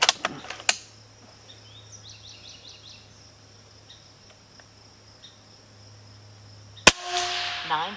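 Benjamin Bulldog M257 .257-calibre PCP air rifle firing once near the end: a single sharp crack with a short fading tail. A few clicks at the start from handling the rifle. Insects buzz steadily throughout, and a bird chirps a quick falling series about two seconds in.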